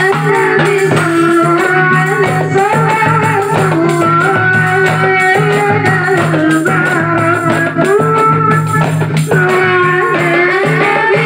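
Marawis ensemble music: a wavering melody line of long held notes sliding between pitches over steady percussion.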